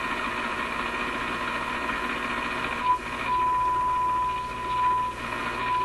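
RCA A25 tube radio's speaker hissing as it is tuned, then a signal generator's steady test tone comes in clean about three seconds in, fades briefly a little after five seconds and returns. The 1500 test signal is tuning in near 1400 on the dial, so the dial pointer reads well off.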